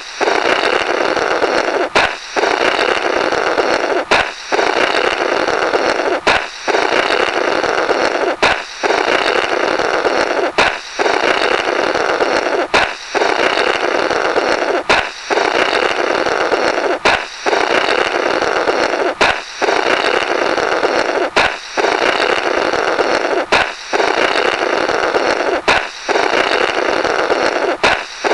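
A balloon popping, then a buzzing, flapping 'blorrrt' of air blown through the burst rubber, repeated back to back about every two seconds.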